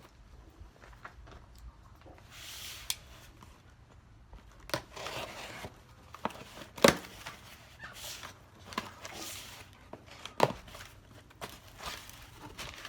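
A cardboard shipping box being opened by hand: tape and cardboard tearing in short rips, and packing material rustling. Several sharp knocks, the loudest about seven seconds in and another about ten and a half seconds in.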